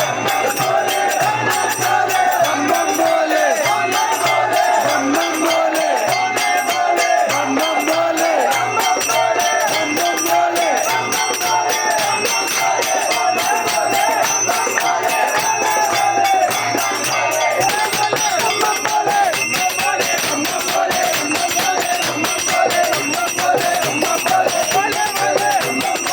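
Music: chanted or sung voices over fast, steady jingling percussion.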